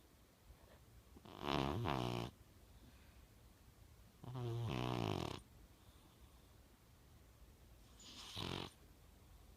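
British Shorthair cat snoring in its sleep: three rasping snores a few seconds apart, the last one shorter.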